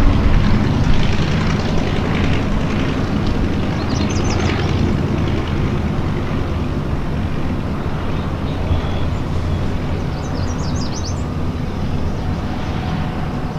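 Kinner B-5 five-cylinder radial engine and propeller of a 1935 Kinner B-2 Sportwing running as the plane touches down and rolls out, a steady low rumble that slowly fades as it moves away. Short high chirps sound twice, about four seconds in and about ten seconds in.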